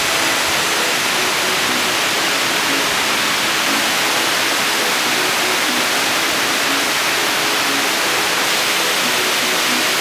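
Waterfall water rushing in a steady, even roar of falling and splashing water.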